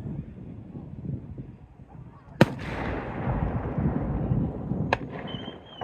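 Aerial fireworks shells bursting: two sharp bangs about two and a half seconds apart, the first louder, with a rolling rumble between them. A thin high whistle starts near the end.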